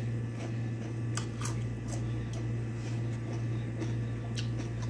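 A person chewing a mouthful of cucumber with the lips closed, giving a few faint crunches and mouth clicks, over a steady low hum.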